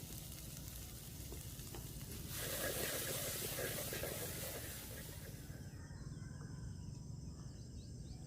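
Tomatoes and salt sizzling in hot sesame oil in a pan: a soft hiss that swells for a few seconds from about two seconds in, then settles back.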